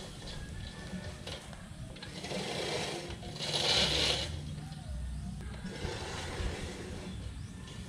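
Manual reel push mower's blades spinning as it is pushed through grass, loudest about three and a half seconds in.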